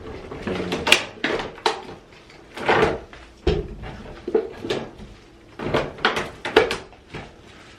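Bottles and other items being handled and set into a mini refrigerator: a run of about a dozen irregular knocks, clacks and rustles.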